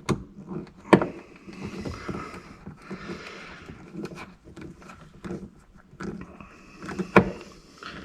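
Hand work on wiring with a screwdriver: scattered sharp clicks and knocks of the tool and wire terminals, with handling rustle between them. The loudest knocks come about a second in and about seven seconds in.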